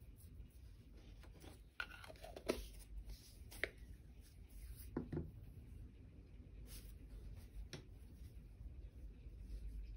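Quiet room tone with a low hum and a handful of faint, scattered clicks and taps.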